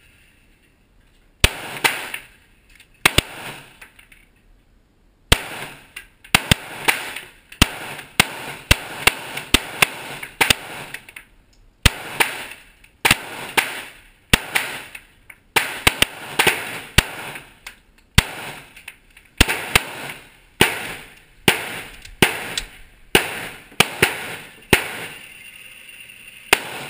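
Semi-automatic pistol fired shot after shot, some two dozen shots mostly half a second to a second apart, with a pause of about two seconds after the first two. Each shot rings on in the echo of the enclosed indoor range.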